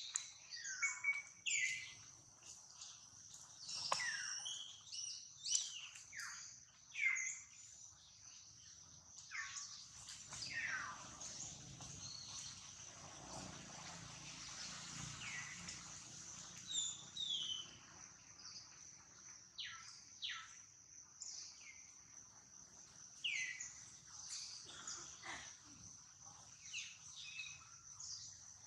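Forest ambience: a steady high insect drone, with many short high calls that fall in pitch, scattered through and bunched near the start and again later. A stretch of soft rustling noise runs through the middle.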